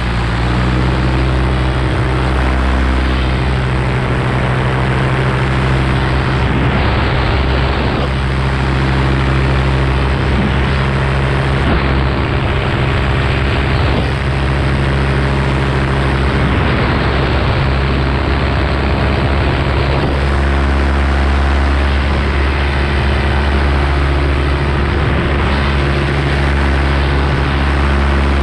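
Paramotor engine and propeller running steadily in cruising flight, a constant loud drone.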